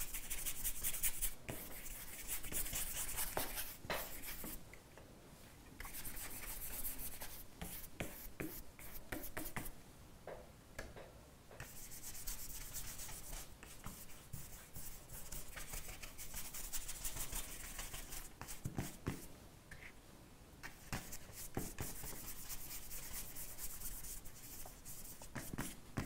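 Paintbrush brushing wet red acrylic paint across acrylic canvas paper, a faint rubbing hiss in runs of strokes broken by short pauses.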